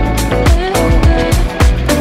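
Background music with a steady beat, about two strong low beats a second under held pitched notes.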